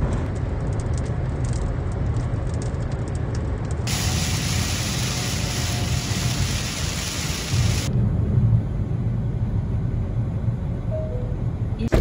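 Steady loud rushing noise with a deep rumble, its tone changing abruptly about four and eight seconds in.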